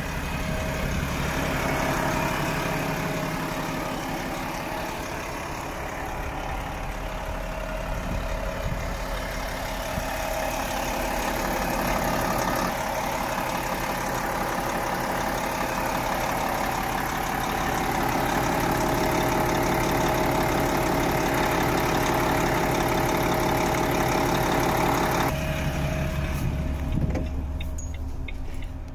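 A Volvo FM 450 truck's 13-litre six-cylinder diesel engine idling steadily, with a constant hum. Near the end the sound suddenly becomes duller, heard from inside the cab, and there is one sharp knock and a few faint ticks.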